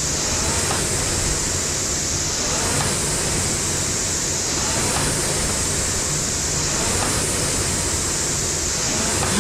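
Knockoff Concept2-style rowing machine's fan flywheel whooshing steadily under continuous rowing, the rush swelling with each drive stroke about every two seconds.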